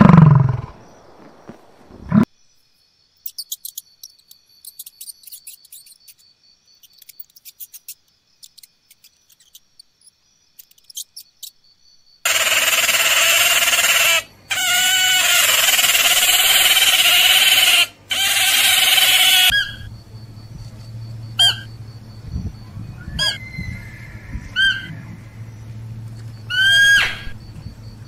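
A Highland cow's low moo falling away at the start, then faint scattered clicks. About twelve seconds in, a beaver's loud, wavering whining squeals over a hiss, in three stretches lasting some seven seconds in all, followed by softer short squeaks and chirps over a low hum.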